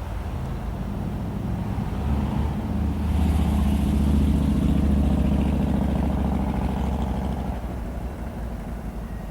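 Diesel locomotives of a Norfolk Southern freight train passing close by, the engine drone and rumble swelling to a peak about halfway through and then fading as they go by.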